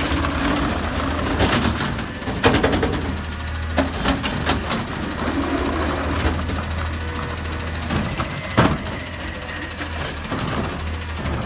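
Autocar ACX garbage truck's natural-gas engine idling while its McNeilus ZR automated side-loader arm hydraulically lifts a trash cart, empties it into the hopper and lowers it back to the curb. Metal clanks and thumps from the arm and cart stand out over the engine, the loudest about two and a half seconds in and again near eight and a half seconds.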